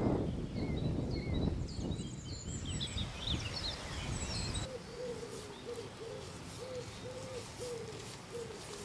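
Low wind rumble on the microphone with small birds chirping high and briefly. About halfway through this gives way to a bird cooing over and over in low, rounded notes.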